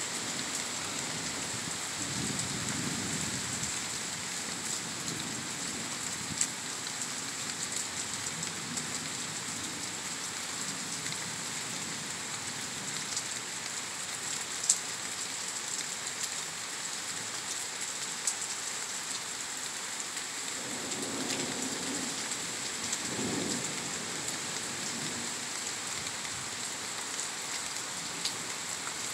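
Heavy thunderstorm rain falling steadily in a constant hiss, with a few sharp single drop hits close by. Low rumbles of distant thunder swell up a couple of seconds in and again about two-thirds through.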